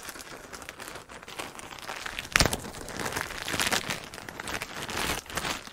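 A plastic packaging bag crinkling as it is handled and torn open by hand, with one sharp snap about two and a half seconds in.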